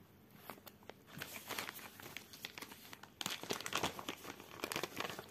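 Paper instruction sheet crinkling and rustling as it is handled and moved aside, in irregular crackles that get denser from about a second in.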